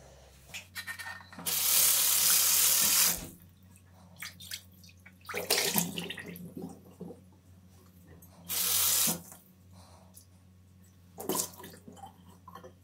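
Kitchen tap gushing in short bursts to rinse a stainless steel frying pan over a stainless steel sink: one long gush of about a second and a half, then water splashing off the pan, a second shorter gush, and a brief splash near the end.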